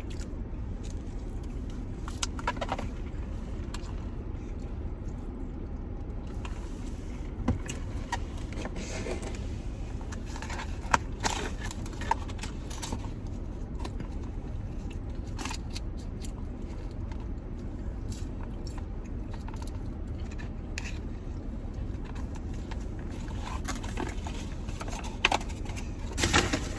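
Eating sounds: chewing and scattered crinkles and clicks of fast-food paper wrappers and packaging, over a steady low hum like a car's engine or fan running.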